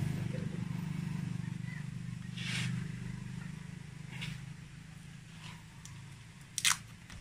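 Low hum of a motor vehicle engine that fades away over the first few seconds. Short rustles and a sharper crackle near the end come from fingers picking at a roll of clear packing tape.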